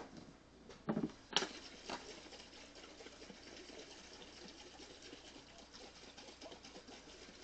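A lid is screwed onto a glass mason jar, with a couple of sharp clicks about a second in, then the jar of liquor is shaken by hand to mix in powdered pudding: a faint, fast, even sloshing patter.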